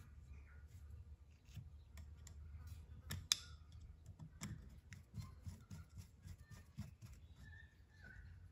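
Small screwdriver driving the tiny cover screws into a diaphragm carburettor, with faint clicks and scrapes of the small metal parts being handled and one sharper click about three seconds in. A low steady hum runs underneath.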